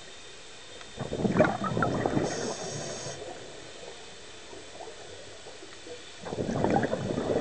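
Scuba diver breathing through a regulator: two rushes of exhaled bubbles, each lasting about two seconds, the second coming about five seconds after the first.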